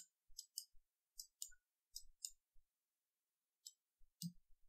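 Faint, irregular clicking from a computer input device, about nine small clicks spread unevenly, with one soft low thump near the end.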